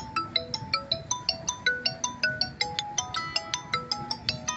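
A bright, quick ringtone-style melody of short plinking notes, about five or six a second, over a low rumble. It cuts off suddenly at the end.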